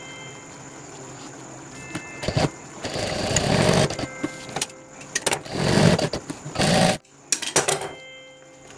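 Industrial lockstitch sewing machine stitching nylon webbing onto a fabric piece in several short runs of about a second each, with a faint hum between runs. It stops suddenly about seven seconds in, followed by a few sharp clicks.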